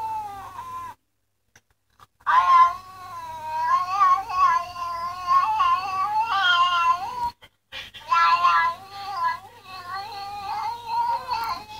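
A cat's long, drawn-out meows with a wavering pitch, played from a 'talking cat' video on a laptop. They come in three stretches, each cut off suddenly by a short silence.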